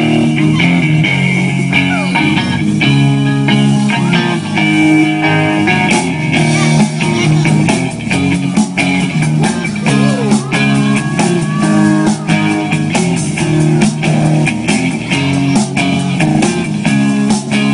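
Live rock band playing an instrumental passage: electric guitars over bass and a drum kit, with a steady beat.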